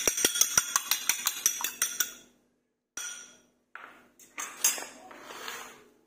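A raw egg being beaten by hand in a glass bowl, the utensil clicking against the glass in a quick, even run of several taps a second that stops about two seconds in. Then a single clink and a few seconds of softer handling noise.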